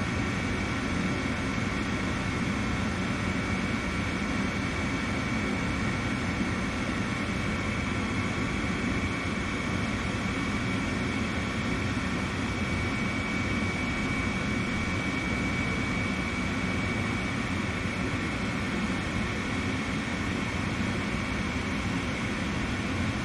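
Gas furnace running its start-up cycle: a steady fan whoosh with a faint steady whine, while the igniter heats and before the burners light.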